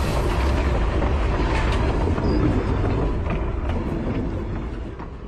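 Steady low rumbling noise with scattered clicks and rattles, fading out over the last couple of seconds.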